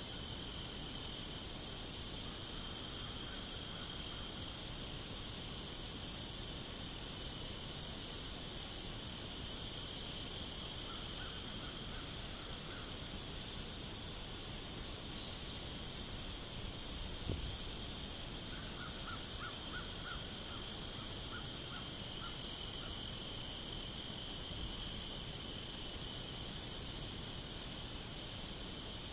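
Steady chorus of field insects trilling at two high pitches, with a few short runs of chirps partway through.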